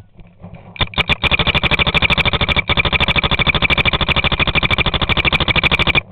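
Paintball marker firing a fast string of shots, over a dozen a second, after a few single shots, with one brief break partway through.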